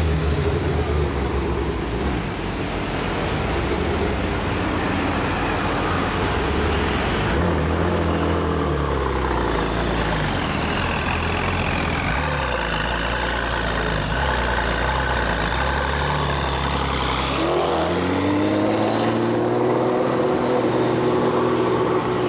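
Gemballa-tuned Porsche twin-turbo engines running at low revs, in short clips that change abruptly; in the last few seconds the Gemballa Avalanche's flat-six pulls away, its pitch rising steadily as it accelerates.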